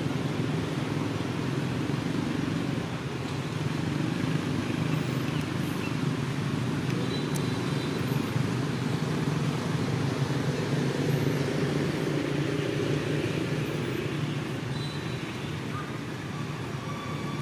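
Steady low rumble of outdoor background noise with a few faint, short high chirps.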